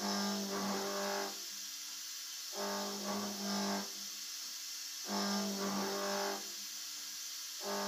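CNC mill cutting a round-bottomed groove in a metal block with a ball-nose end mill, over a steady high hiss. Each time the cutter engages on a pass it gives a low, steady-pitched tone with overtones lasting about a second, repeating about every two and a half seconds, three times.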